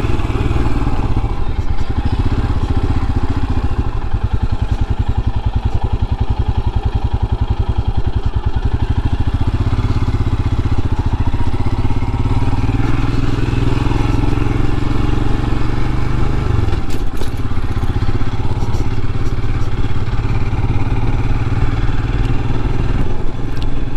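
Royal Enfield Himalayan's 411 cc single-cylinder engine running steadily while the bike is ridden at low speed, with an even low pulse from each firing stroke. The engine note rises a little about halfway through and dips briefly a few seconds later.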